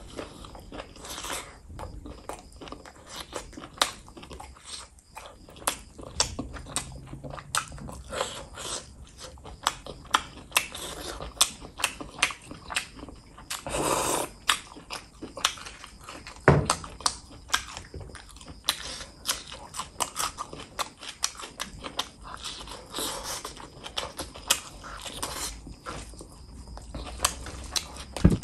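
Close-up eating sounds: wet chewing, lip smacks and mouth clicks from chicken and rice eaten by hand. About halfway through comes a longer slurp of gravy sipped from a bowl.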